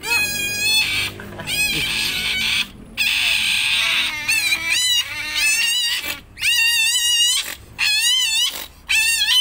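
Pet otters calling: a run of about seven shrill squeals, each up to a second long with a wavering pitch and short breaks between them, one of them raspier than the rest.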